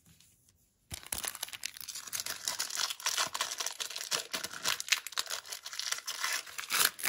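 Foil wrapper of a 2003 Upper Deck Play Ball baseball card pack being torn open and crinkled. There is a dense, continuous crackling that starts about a second in.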